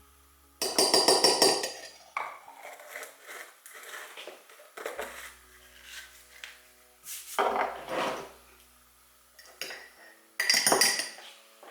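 A spoon stirring pudding batter in a mug, clinking and scraping against the sides in bursts of rapid strokes. The loudest run is about half a second to two seconds in, with more around eight seconds and near the end.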